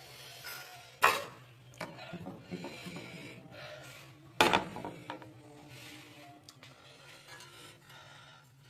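Plates and cutlery clinking and scraping while eating, with two sharp knocks, about a second in and again after four and a half seconds.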